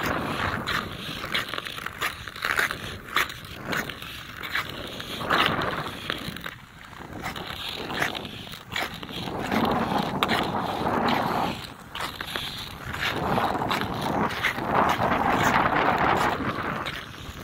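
Ice skate blades scraping and hissing across frozen pond ice in repeated glides, with short sharp clicks as the blades bite.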